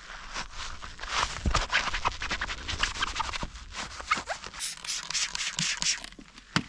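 Soapy sponge being squeezed and rubbed inside a foam-covered carbon mountain-bike frame around the rear shock: a quick run of wet scratching, squelching strokes. Near the end comes one sharp click, and a bristle brush is put to the rear cassette.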